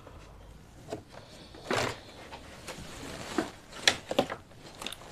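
Scattered clicks and rustles of cables and plastic connectors being handled on the opened back of an LED TV, with a rustling scrape about two seconds in and a sharp click near four seconds.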